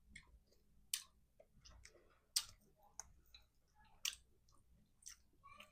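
Close-miked eating sounds: a few sharp clicks and cracks, about one every second or so, as crab leg shells are cracked and the meat chewed.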